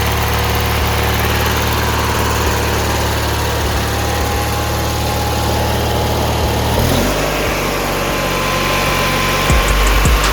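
18 hp Briggs & Stratton V-twin engine of a Murray riding mower running at idle, with a steady beat. About seven seconds in its speed changes abruptly.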